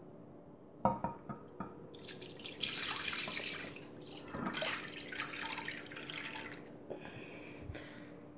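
A thin liquid milk mixture being poured into a pan, splashing and trickling for several seconds before it tapers off. A sharp clink comes about a second in.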